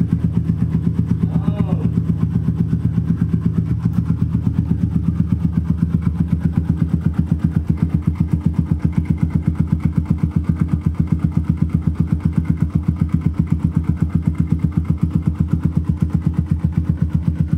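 Keeway CR152's single-cylinder four-stroke engine idling steadily with an even, rapid putter, just after starting, its repainted and heat-wrapped exhaust elbow freshly refitted.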